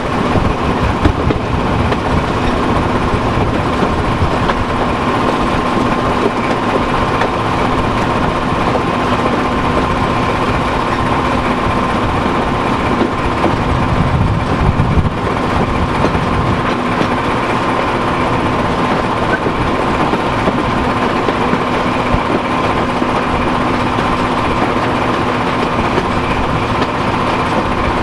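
BR Class 14 diesel-hydraulic locomotive on the move, heard close alongside its engine compartment: the Paxman Ventura diesel engine runs with a steady drone and whine over the rumble of wheels on the rails. A louder rumble comes about halfway through.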